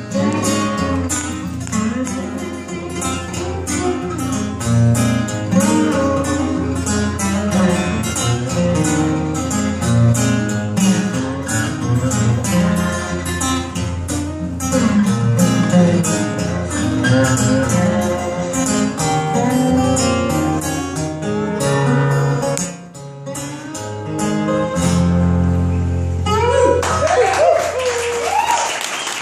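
Two acoustic guitars playing an instrumental passage together. About 26 seconds in, the playing ends and the audience breaks into applause and cheering.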